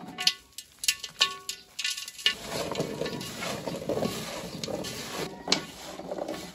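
Halved apricots being mixed with sugar by hand in a large aluminium basin. In the first two seconds there are several sharp clinks that ring briefly off the metal basin, followed by a steady wet rustle as the fruit is turned over.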